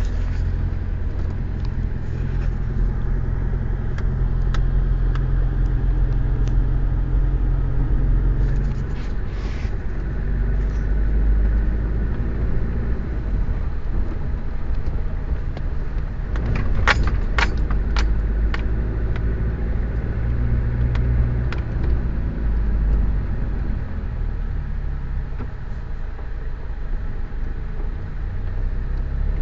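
Car engine and road noise heard from inside the cabin while driving: a steady low rumble whose engine hum drops away about eight seconds in. A few sharp clicks or rattles come a little past halfway.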